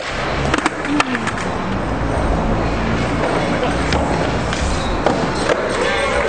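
Skateboards rolling on pavement, with a few sharp clacks of boards hitting the ground, amid crowd chatter.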